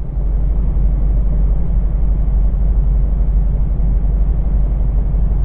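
Boat motor running steadily, a loud low drone.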